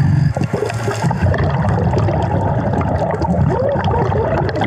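Muffled underwater gurgling and bubbling, typical of a scuba diver's exhaled air from the regulator, over a choppy low rumble.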